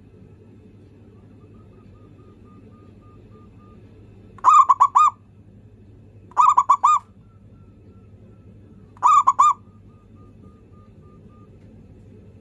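Zebra dove (perkutut) cooing: three short phrases of quick, pitched coo notes, each about half a second long, coming about four and a half, six and a half and nine seconds in.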